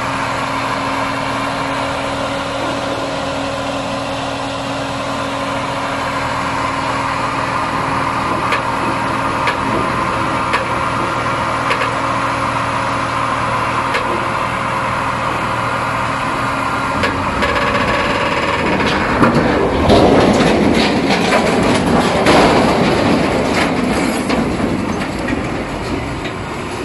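A heavy truck engine running steadily. About two-thirds of the way through it gives way to louder, uneven rushing and crashing of waves breaking over a quay.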